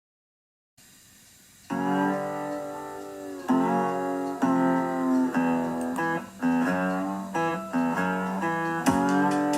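Guitar music: a guitar playing a run of held chords that change about once a second, coming in about a second and a half in after a moment of dead silence.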